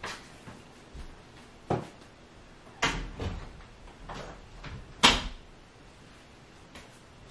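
Interior glass-paned door being handled: a series of sharp knocks and latch clicks, the loudest about five seconds in.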